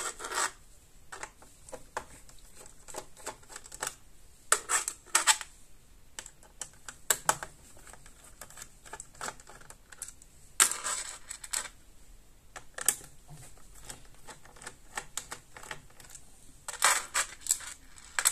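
Small screwdriver clicking and scraping on the screw heads as the screws holding the hard-drive cover of a Dell Latitude E6320 laptop are loosened: scattered short clicks in small clusters, with quiet gaps between.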